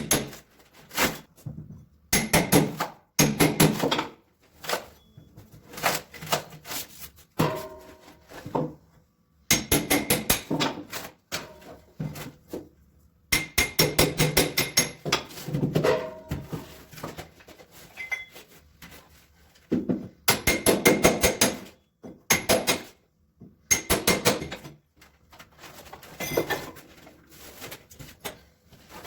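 Workshop hand-tool work on wood: repeated bursts of rapid knocking strokes, each burst about a second long, with short pauses between.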